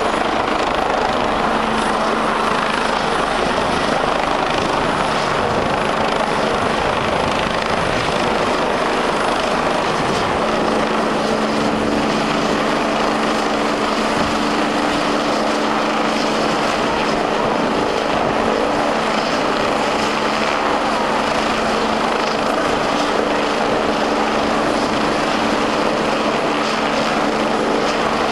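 Eurocopter EC145 rescue helicopter running close by, its rotor and twin turbines making a steady, loud noise with a constant hum that grows a little stronger about ten seconds in.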